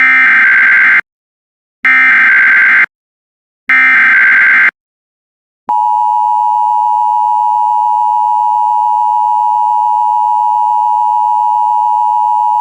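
Emergency Alert System SAME header: three buzzy digital data bursts, each about a second long, followed about six seconds in by the steady two-tone EAS attention signal. Together they announce an incoming emergency alert, here a tornado warning.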